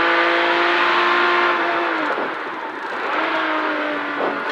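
1973 Porsche 911's air-cooled flat-six engine running hard on a rally stage, heard from inside the car over road and tyre noise. Its note holds steady, drops away about two seconds in, and comes back on about a second later.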